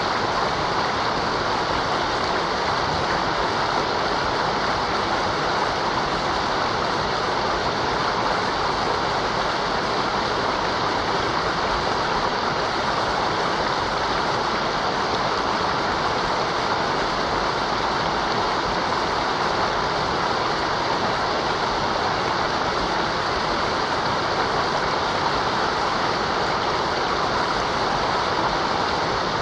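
Mountain river rushing over rocks, a steady, even roar of running water that does not change.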